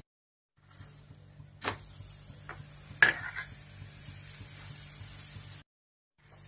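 Aloo paratha frying in ghee on a nonstick tawa, a steady sizzle, with sharp clacks of a steel spatula against the pan about 1.7 and 3 seconds in as the paratha is pressed and turned. The sound drops out briefly at the start and near the end.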